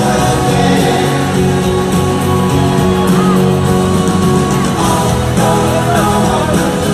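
Live pop-rock band music with singing, loud and continuous, as heard in a concert recording.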